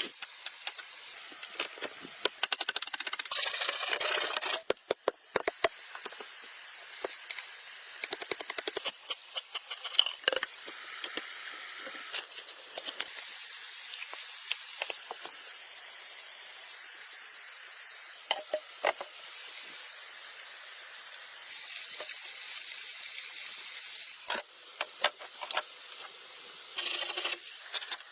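Hand work with tools on plant material: irregular sharp knocks and clicks with stretches of rubbing and scraping, over a steady rushing hiss of falling water.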